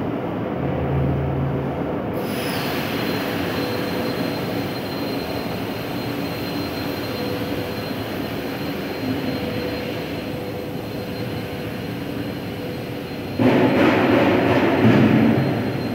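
Steady machinery running in a factory hall, with a thin high whine that joins about two seconds in, and a louder rush of mechanical noise for about two seconds near the end.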